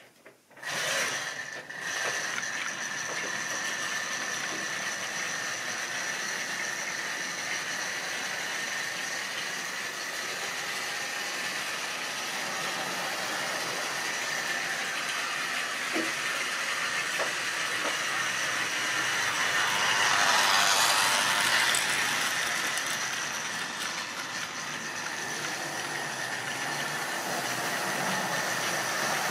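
Small electric motor of a model railway locomotive whining steadily as it hauls a goods train round the track. It starts up about a second in and grows louder around two-thirds of the way through as the train passes close by.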